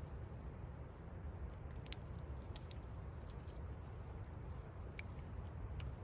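Wood fire crackling: scattered, irregular sharp pops over a low steady rumble.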